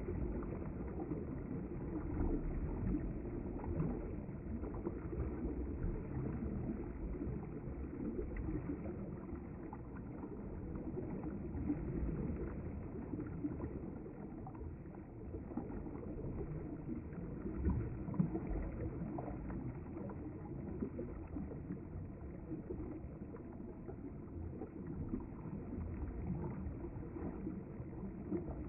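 River water flowing steadily, a continuous low rushing of the current.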